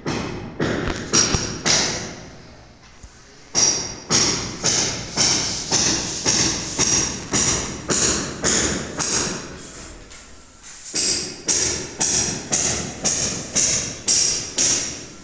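Steady hammer blows with a bright metallic ring, about two a second, in three runs broken by short pauses.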